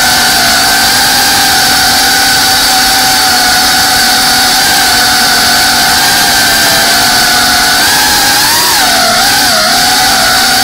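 FPV drone's brushless motors and propellers whining steadily, picked up close by the onboard camera; near the end the pitch swells and dips a few times with throttle changes.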